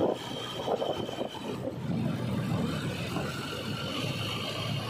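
JCB 3DX backhoe loader's diesel engine running steadily as the machine drives, with a sharp knock right at the start and a few rattles in the next second.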